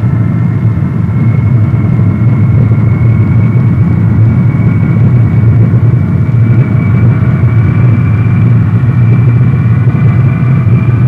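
Lockheed C-5A Galaxy's four turbofan jet engines running as the aircraft rolls on the runway. It is a steady low rumble with a thin high whine that climbs slightly in pitch.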